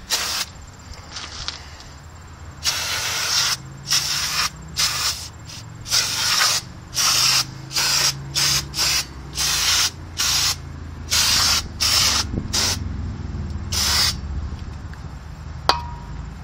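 Aerosol brake cleaner spraying from its straw in well over a dozen short sprays, some about a second long, to wash grease and brake dust off a rear wheel hub and parking-brake shoes. There is one sharp click near the end.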